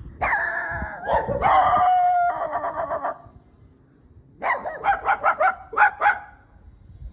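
Dog-like yelping and whining for about three seconds, then after a pause a quick run of about eight short barks.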